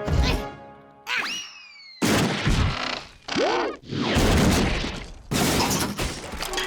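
Cartoon crash sound effects: a sharp hit, then a falling whistle about a second in, then several seconds of loud crashing and booming impacts, with music underneath.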